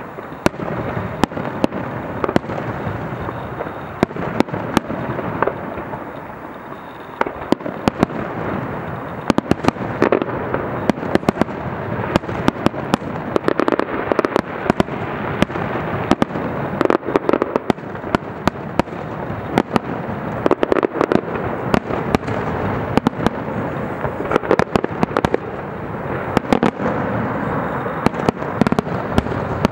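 Aerial firework shells bursting in quick succession, with dense sharp cracking and popping over a steady rumble of bursts. There is a slightly quieter spell about six seconds in, then the barrage grows denser again.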